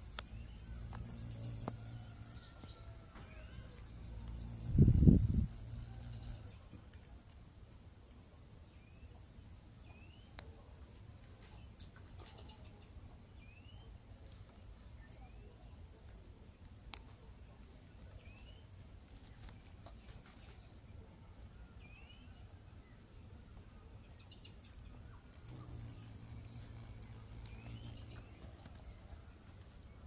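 Outdoor rural ambience: steady high chirring of insects such as crickets, with short rising chirps recurring every second or so. A low hum comes and goes at the start and again near the end, and a loud low thump sounds about five seconds in.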